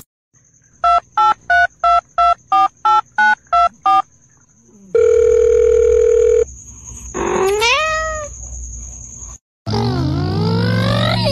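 About ten short electronic beeps in quick succession, like phone keypad tones. Later a cat meows with a rising cry. Near the end a loud, voice-like sound slides up and down in pitch.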